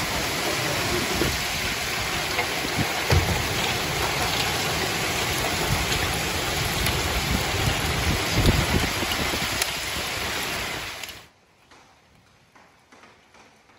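Heavy, wind-driven rain in a severe thunderstorm, a dense steady rush with a few deep gusting surges. About eleven seconds in it cuts off suddenly, leaving only faint ticks.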